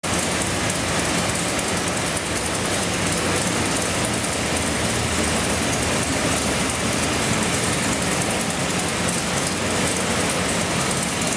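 416-cubic-inch LS3-based V8 idling steadily on an engine dyno, with no revving.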